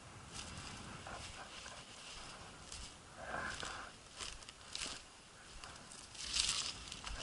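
Footsteps through dry, dead grass: uneven rustling steps, the loudest about three seconds in and again near the end.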